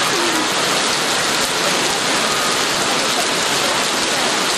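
Heavy rain pouring down in a steady, even hiss with no break.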